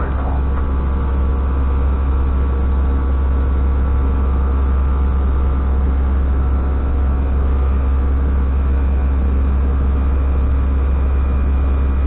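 Steady flight-deck noise of an Airbus A320 in flight: a constant loud low drone with a few fixed humming tones over it.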